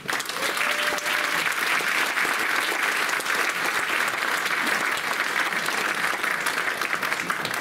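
Audience applauding, a dense, steady clapping that starts right away, welcoming a performer on to the stage.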